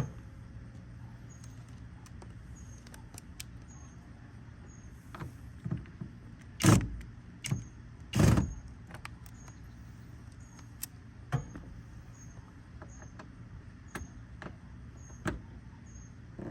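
Plastic retaining clips of a car's rear door trim panel snapping loose as the panel is pried off: a handful of sharp snaps, the two loudest a little past the middle. Under them is a steady low hum, with a faint high chirp repeating steadily.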